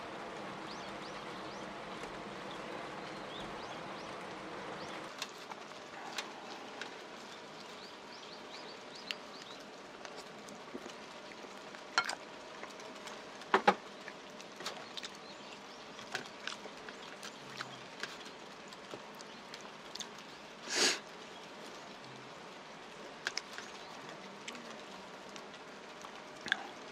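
Steady hiss of light rain, with scattered sharp clicks of chopsticks against ceramic bowls and close eating sounds from about five seconds in, and one brief louder rush later on.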